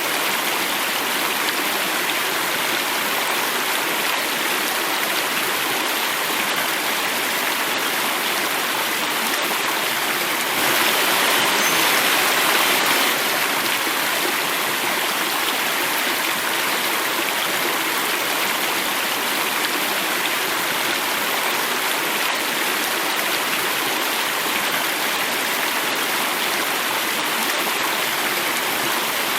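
Water running and falling in a cascade, a steady rushing that grows a little louder for a couple of seconds about ten seconds in.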